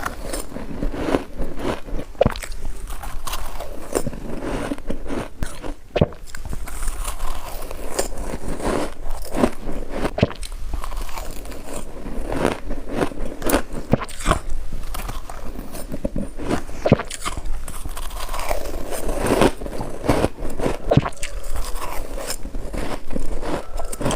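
Close-miked biting and chewing of white snow ice: a steady run of sharp, irregular crunches as pieces are bitten off and crushed between the teeth.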